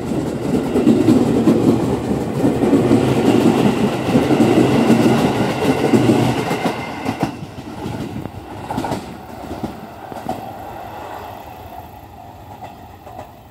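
JR West 207 series electric train running past close by, its wheels rumbling on the rails, with a steady whine joining in about three seconds in. The sound fades over the second half as the train moves away.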